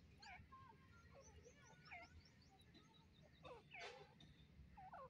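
Faint bird calls: scattered short chirps and whistles that bend up and down in pitch, with a louder cluster of calls in the second half, over faint high ticking notes.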